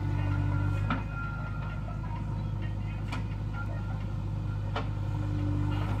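JCB 3DX backhoe loader's diesel engine running steadily under load while the backhoe digs and raises a bucket of mud, with a few sharp knocks spread through.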